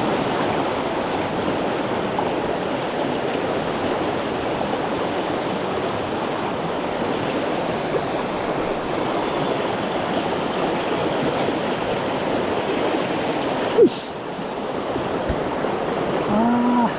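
Mountain stream rushing steadily over rocks, with a sharp click about fourteen seconds in.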